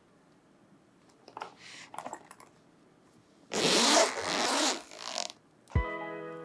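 Unboxing handling sounds: a few light rustles, then about two seconds of loud scraping and rustling of packaging. Music with a low hit comes in near the end.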